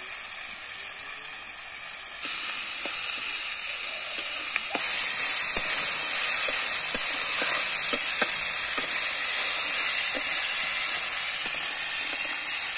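Flat beans, potatoes, carrots and green chillies sizzling in hot mustard oil in a steel karahi, with a metal spatula scraping and tapping the pan as they are stirred. The sizzle grows louder about two seconds in and again about five seconds in.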